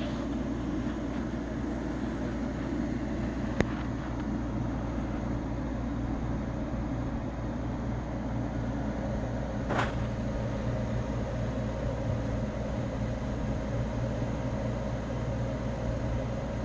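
A steady machine hum with a hiss over it, broken by a sharp click about three and a half seconds in and a brief rush of noise near ten seconds.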